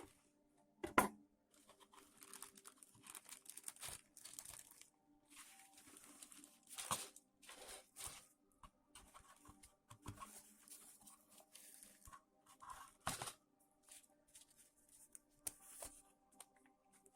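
Plastic packaging of a model kit being handled: repeated crinkling and tearing rustles, with a few sharp knocks, the loudest about a second in.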